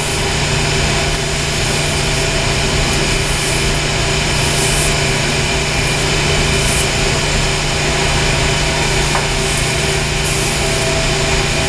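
Steady loud drone of running mechanical-room machinery, with a constant low hum under it. A few brief rustles of a cloth wiping copper pipe come through on top.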